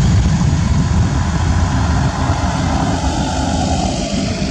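Airbus A320 jet engines running at take-off thrust as the airliner accelerates down the runway: a loud, steady, deep roar that eases slightly toward the end.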